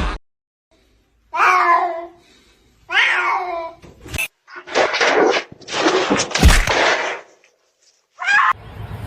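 Cat meowing twice, each call falling in pitch, then a few seconds of louder rough noise and another short call near the end.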